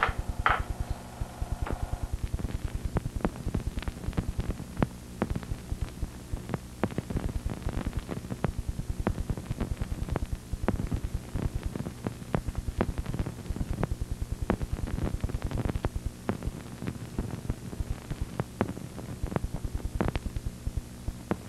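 Steady mains hum under a constant, irregular crackle of clicks and pops: the surface noise of a worn 1970s film soundtrack.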